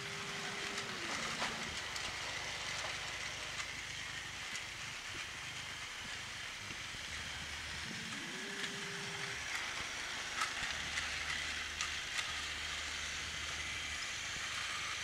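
Battery-powered Plarail motorized toy train (Toby) running on plastic track: a steady small-motor whir with scattered light clicks from the wheels and track joints.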